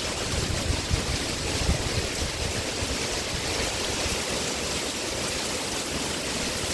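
Heavy rain pouring down in a steady hiss, with a few low thumps in the first couple of seconds.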